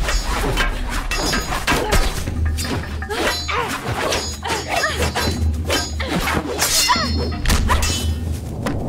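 Film fight-scene sound mix: a rapid series of sword and staff blows and thuds over a music score.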